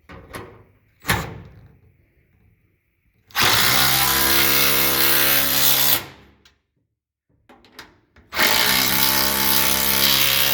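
Cordless impact wrench run twice for about two and a half seconds each, tightening the bolts of the freeze plugs that hold the toolbox down. A single knock comes about a second in.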